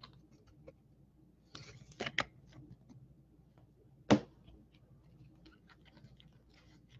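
Hard plastic trading-card cases being handled and set on a table: faint rubbing and ticks, a short scrape about two seconds in, and one sharp plastic click about four seconds in.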